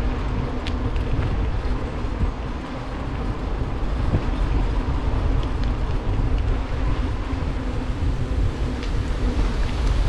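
Wind buffeting the camera microphone as a mountain bike rolls along a paved lane, with tyre rumble and a few light clicks and rattles from the bike.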